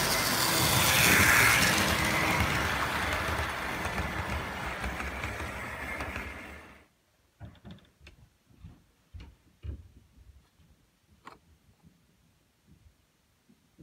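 Model railway steam locomotive and its train running past on the layout track: a rushing whirr of motor and wheels that swells as it passes close and eases off, then cuts off abruptly about seven seconds in. After that it is near quiet apart from a few scattered light clicks and knocks.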